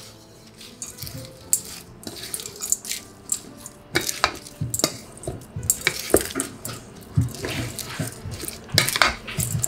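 Wooden spatula stirring and mixing cooked rice in a stainless steel bowl. It makes irregular scrapes and knocks against the bowl, busier and louder in the second half.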